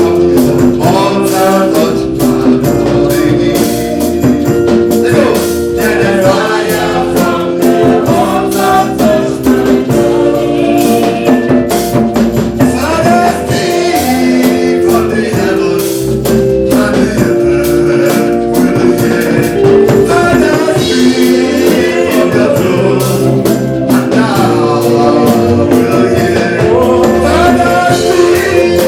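Gospel praise music with singing over a steady beat.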